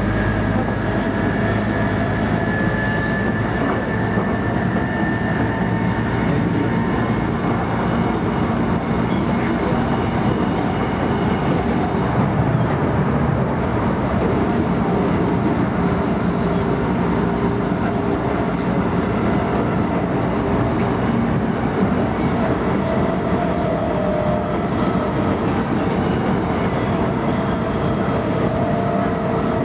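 Running noise of an E233-3000 series electric train heard from inside the passenger cabin at speed: a steady rumble of wheels on rail, with a few faint tones drifting in pitch.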